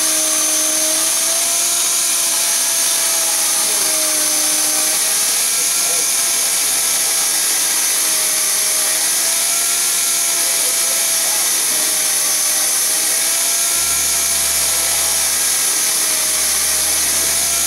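Elliptical manway cover machine running and cutting a metal manway cover: a steady motor whine over a constant hiss, its pitch rising and falling gently every two to three seconds. A low hum joins about fourteen seconds in.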